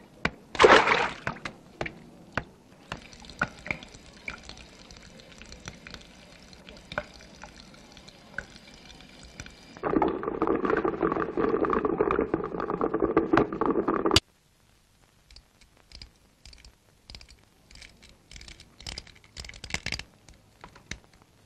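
Running water in a bathroom: a steady hiss of water, then a louder gush for about four seconds that stops suddenly, followed by scattered small clicks and taps.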